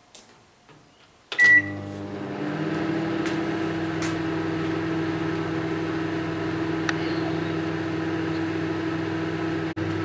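Microwave oven set to full power: a click from its dial, one short beep about a second in as it starts, then a steady hum as it runs.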